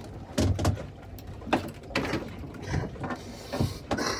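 Handling noises as a freshly caught black bream is swung aboard a small boat and unhooked by hand: a dull thud about half a second in, then scattered knocks and scrapes, with a brief rustle near the end.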